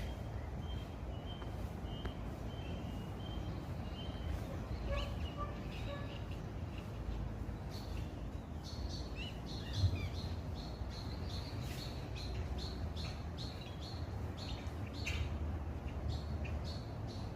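Birds chirping: runs of short, evenly spaced high calls, a lower series in the first few seconds and a higher, busier series from about halfway, over a steady low outdoor rumble.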